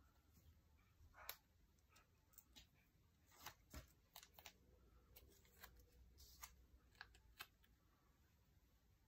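Near silence, with faint scattered clicks and rustles of paper pages and a sticker being handled on a desk.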